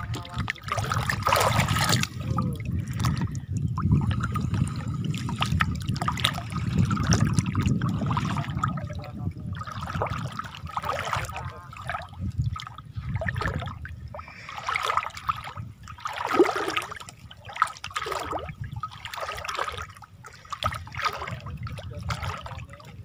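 Shallow water sloshing and swishing in irregular strokes as someone wades through it, over a steady low rumble.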